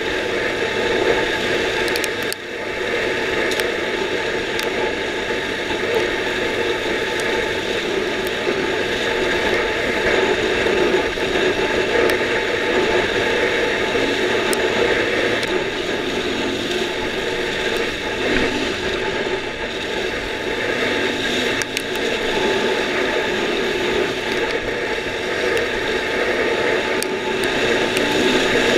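Dirt bike engine running steadily while riding at speed, heard close up from the bike, with wind noise and the rattle and clatter of the bike over the track; the engine note drops briefly about two seconds in.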